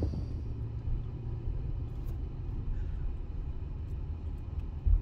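Pickup truck driving slowly: a low, steady rumble of engine and tyres on the road.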